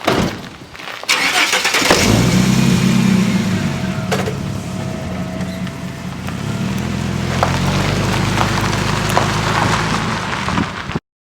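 Car engine starting about a second in, then running steadily, and cutting off abruptly near the end.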